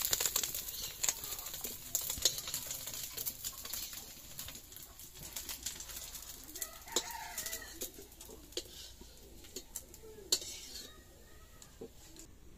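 Metal spatula scraping and clinking against an iron kadai as small fish fry with a sizzling hiss, the clatter thinning out in the second half. A bird calls briefly in the background about halfway through and again near the end.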